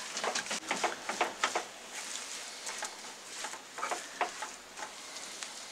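Spatula stirring and scraping a mashed potato and pea filling in a nonstick pan on low heat: soft, irregular scrapes and taps over a faint hiss.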